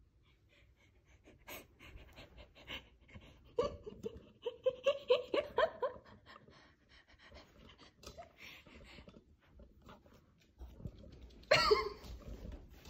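Quick breathy laughter, a run of short pulses a few seconds in, among light scattered taps and clicks. A single brief, sharp vocal sound comes near the end.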